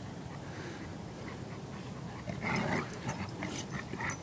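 A golden retriever and a pit bull tugging on a rubber toy, with low play growling and a short louder burst about two and a half seconds in.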